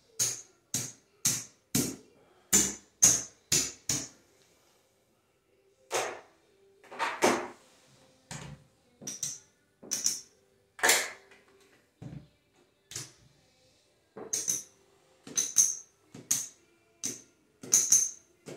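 Poker chips clicking against one another as they are picked up, stacked and set down on a craps table: quick irregular clacks in short clusters, with a lull of about two seconds a few seconds in.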